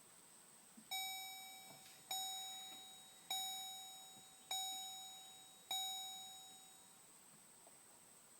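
Chevrolet Colorado's warning chime dinging five times at an even pace, each bell-like ding fading out before the next. A faint steady high whine runs underneath.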